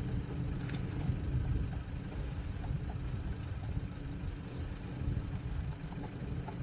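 A vehicle engine idling steadily: a low rumble with an even hum, with a few faint clicks over it.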